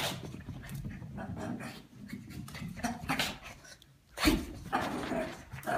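Shih Tzu dog making dog noises as she twirls and scrambles on a rug during zoomies: irregular scuffling, with a louder burst about four seconds in.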